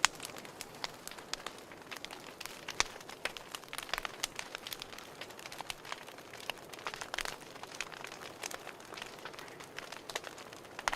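Wood fire crackling in a fireplace: irregular sharp pops and snaps over a soft steady hiss.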